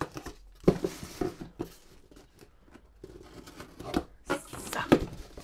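A knife slicing through packing tape on a cardboard box, then the flaps worked open: irregular cardboard knocks and scrapes with two rasping stretches of cut and tearing tape, about a second in and about four and a half seconds in.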